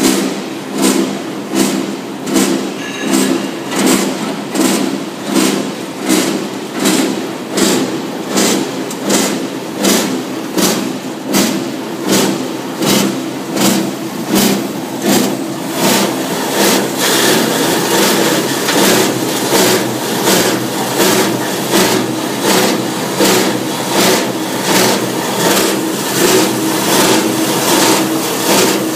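Small copper wire granulator running, a steady machine drone with a regular pulse about once a second.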